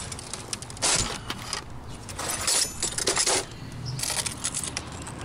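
Metal clinks and scrapes from hand tools and loose TV metal parts being handled during dismantling, in four or five short bursts.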